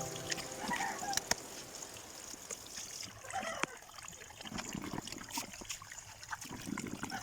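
Water trickling and splashing, with scattered sharp clicks.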